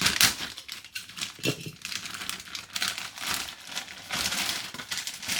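Parcel packaging crinkling and rustling in irregular spurts as it is handled and opened.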